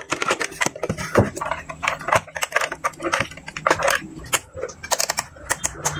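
Light clicks, taps and clatter of hand handling on a workbench: a plastic-cased analog multimeter being turned over and set down, and its test leads moved about. The clicks come irregularly, several a second.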